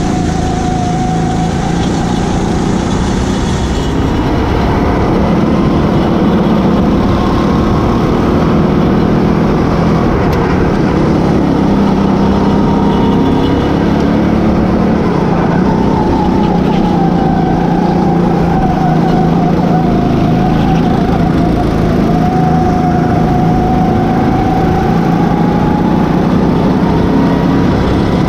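Rental racing kart's engine heard onboard, running hard at racing speed, its pitch rising and falling as the driver accelerates and lifts.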